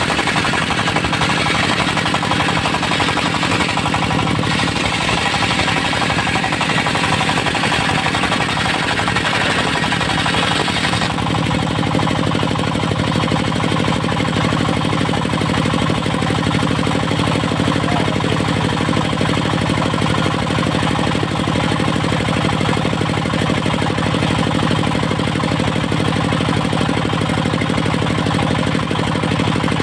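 Portable circular sawmill at work, its engine-driven blade sawing through a Mindi log with a loud, steady rasp. About eleven seconds in the high sawing noise drops away, leaving the engine and spinning blade running steadily.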